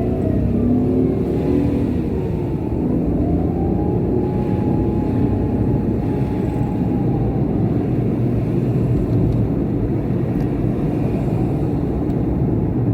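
An emergency vehicle's wail siren, a single tone slowly falling and rising several times, faint under the steady rumble of a car's road and engine noise as heard by a dashcam.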